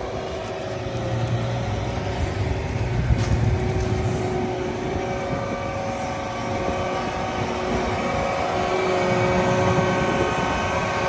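John Deere 7R 310 tractor's diesel engine running as the tractor backs up to a spreader hitch: a steady low rumble with a whine of several held tones over it.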